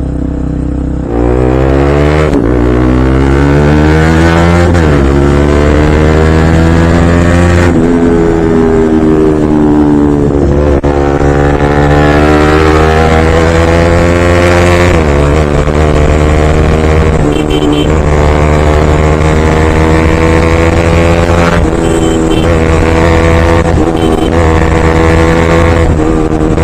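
Bajaj Pulsar NS200's single-cylinder engine accelerating through the gears: its pitch climbs and drops back at each shift several times in the first eight seconds. It then runs at a steady cruise with small rises and falls in speed.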